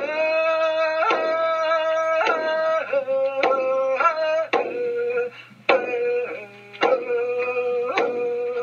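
Intro music: a single melody line of long held notes, each changing to the next about once a second, over a steady low drone.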